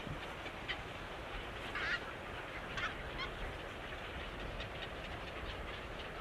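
A few short bird calls, the clearest about two and three seconds in, over a steady background hiss and rumble.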